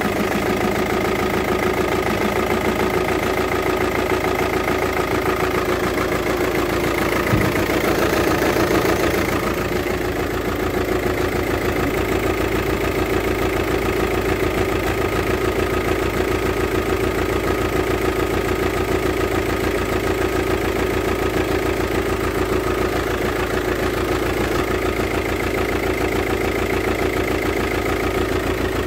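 VW Touran 2.0 TDI four-cylinder diesel engine idling with a steady, regular pulsing beat, which swells briefly about a quarter of the way in. The sound is that of a failing fuel injector.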